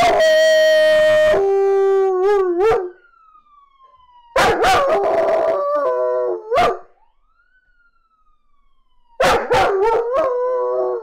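German Shepherd puppy howling in three long howls, each breaking into a wavering, yodelling end. In the gaps between them a faint police siren glides up and down, the sound that sets the dog off.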